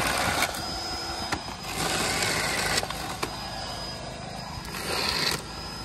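WORX JawSaw battery-powered chainsaw running and cutting through small fallen branches. It gets louder in stretches about two seconds in and near the end, with a few sharp clicks.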